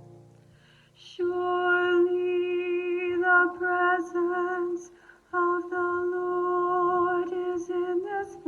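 A woman singing a slow hymn, holding long notes with a slight vibrato, with a short break about five seconds in.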